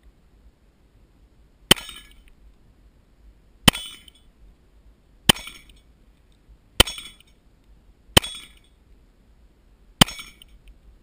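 Glock 20 pistol firing 10mm Auto full metal jacket rounds: six single shots, one every one and a half to two seconds, each a sharp crack with a brief ringing tail. Thin and tinny, as it is recorded through a waterproof camera housing.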